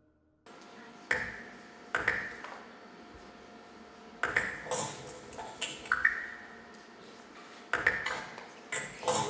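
Sparse, irregular metallic pings, about ten strikes, each with a short ringing tail, over a faint steady drone: a minimal ambient music accompaniment.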